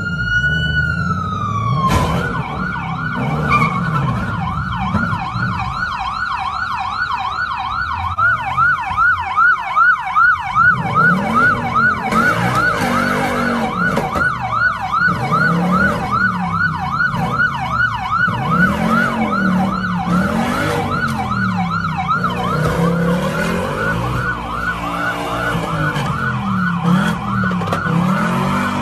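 Police car siren changing from a slow wail to a fast yelp about two seconds in, the yelp then going on steadily; from about ten seconds in a second, lower siren wails slowly up and down beneath it.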